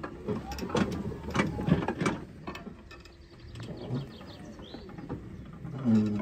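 Irregular mechanical clicks and rattles, thickest in the first two seconds and sparser afterwards, with a short pitched sound near the end.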